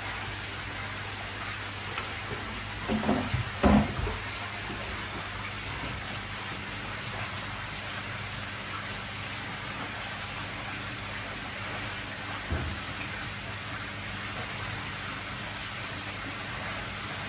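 Steady hiss of running, splashing water with a low electric hum of pumps under it, and a few short knocks about three to four seconds in and once more near the end.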